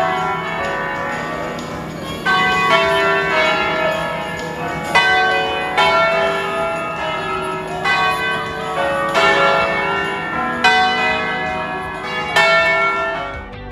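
Bells ringing in a slow, uneven peal, a new strike every second or two, each ringing on and fading under the next.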